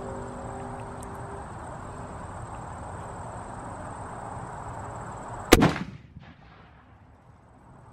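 A single .50 BMG rifle shot about five and a half seconds in: one sharp, very loud report with a short tail after it.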